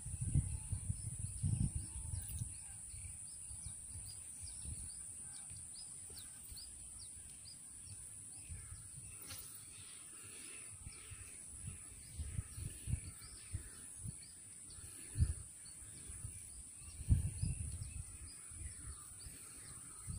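Rural outdoor ambience: faint bird chirps over a steady high-pitched hiss, with irregular low bumps on the microphone, the loudest about three quarters of the way in.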